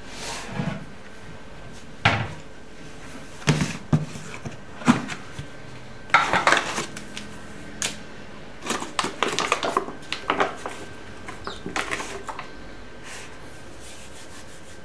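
Kitchen bowls and utensils being handled: irregular knocks, clinks and scrapes, busiest about six seconds in and again around nine to ten seconds in.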